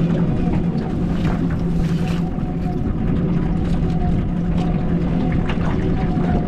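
Outboard motor running steadily, heard from aboard a small aluminium fishing boat, with a few faint crinkles of aluminium foil.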